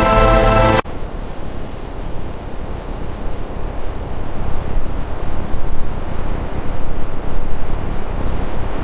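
Music with a held chord stops abruptly about a second in, leaving a low, uneven rushing noise.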